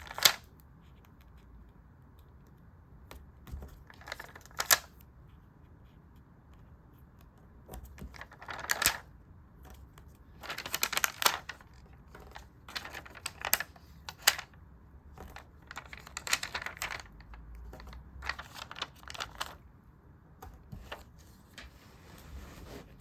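Sticker journaling sounds: paper and stickers being handled, with irregular bursts of rustling and a few sharp taps, separated by quiet gaps.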